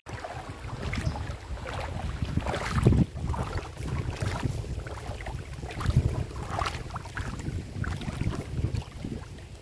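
Wind buffeting the microphone: an uneven low rumble that swells and falls, gusting hardest about three and six seconds in.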